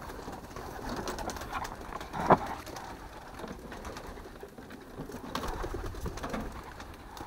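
Racing pigeons cooing in their loft, with a single sharp knock about two seconds in.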